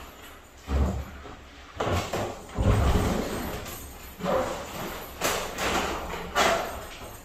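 Irregular deep thumps and brief rubbing swishes from a giant balloon's rubber skin as a person moves inside it.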